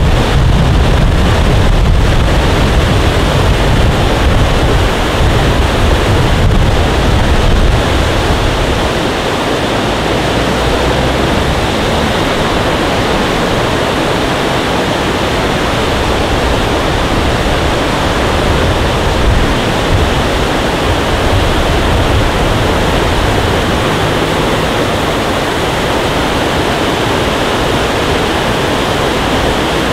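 Wind buffeting the microphone: a loud, steady rushing noise, with a heavy low rumble over roughly the first eight seconds that then eases.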